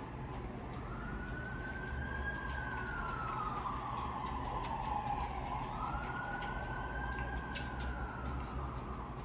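An emergency vehicle's siren wailing in the distance, slowly rising and falling twice. Short clicks of close-up eating and handling are scattered throughout.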